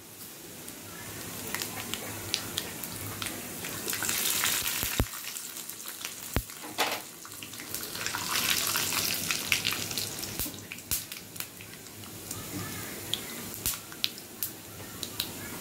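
A spice tempering sizzling in hot oil in a small pan, with dried red chillies, cumin and mustard seeds among the dal, crackling with many sharp pops. The sizzle swells twice, about four and eight seconds in.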